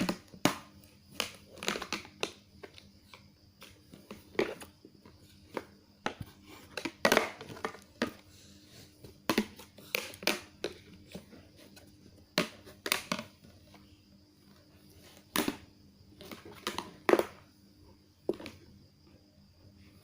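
Irregular crinkling and crunching, as of something being crushed or crumpled, in short crackles every half second to a couple of seconds.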